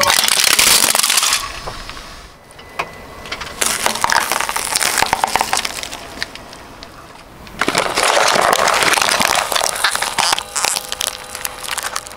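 A car tyre rolling slowly over objects on asphalt and crushing them with crackling and crunching. A plastic toy cow cracks apart under the tyre at the start, softer crunching follows, and the longest, loudest stretch of crackling comes in the second half.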